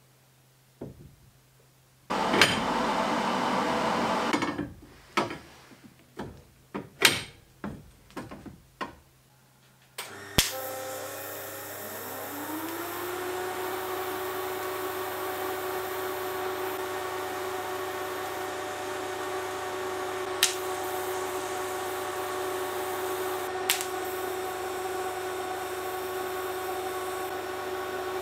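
Steel tubing and bar clamps handled, with a burst of rushing noise and then a run of sharp metal knocks and clanks. From about ten seconds a steady hum and hiss runs while the tube is TIG welded; one tone rises and settles as a motor spins up. Two sharp ticks come near the end.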